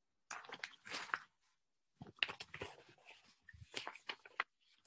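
Faint rustling and clicking handling noises in three short bursts, close to the microphone.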